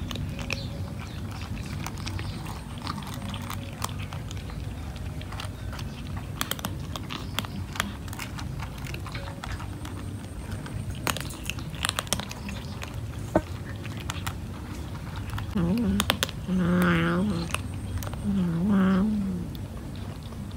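Several cats crunching dry kibble from a metal tray, with many small sharp clicks. About three-quarters of the way through, a cat gives two low, drawn-out yowls, each a second or more long, louder than the crunching.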